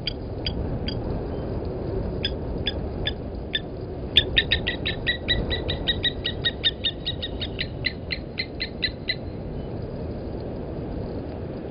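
Blacksmith lapwing giving its sharp, metallic 'tink' alarm notes, like a hammer on an anvil. A few spaced notes come first, then a rapid run of about five a second for some five seconds, then they thin out. A steady low background rumble runs underneath.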